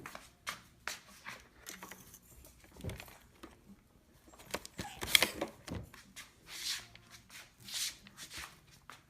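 Irregular clicks, taps and rustles of things being handled, with one louder clatter about five seconds in; no motor is running.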